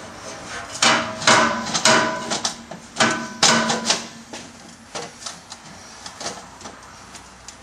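A series of sharp knocks that ring briefly at the same few pitches, in clusters during the first few seconds, then fainter, scattered ticks.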